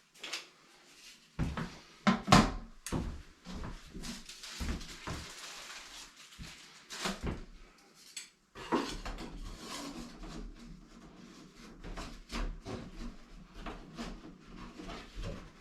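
Irregular knocks, taps and clatter of hand work on bathroom fixtures, echoing a little in a small room, the loudest knocks about two seconds in.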